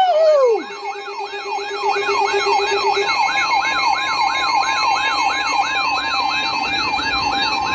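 Electronic siren in a rapid yelp, its pitch rising and falling about four times a second. It opens with a short falling glide. A steady lower tone drops out about three seconds in, and a steady higher tone joins in the second half.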